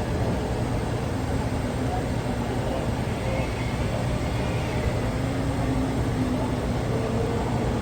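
Steady low engine rumble under even city-street noise, typical of a heavy diesel crane and traffic running, with faint voices in the background.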